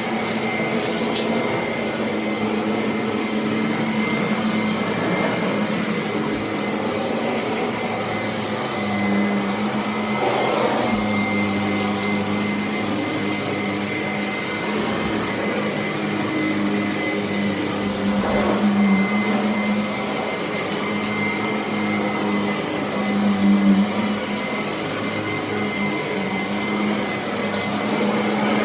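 Kirby Avalir upright vacuum with a ten-bladed metal fan running steadily: a continuous motor hum with a thin high whine over it and a few brief clicks.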